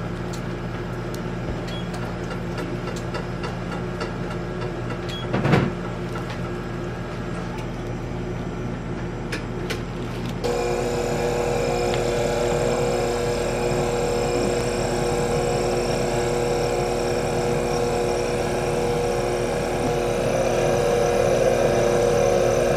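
A low steady hum with a few light clicks and one louder knock about five seconds in. Then, from about ten seconds in, a SMEG stand mixer runs steadily, its whisk whipping a butter filling in the steel bowl.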